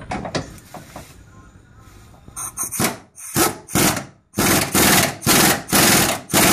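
Hand ratchet on a socket extension, worked in quick back-and-forth strokes, each a short loud rasp of ratchet clicks, about two a second, driving in a K-member brace bolt. It follows a few light metal clicks from handling the wrench.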